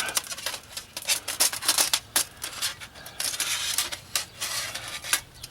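Metal parts of a folding twig stove clicking and scraping as it is assembled, with many short sharp clinks.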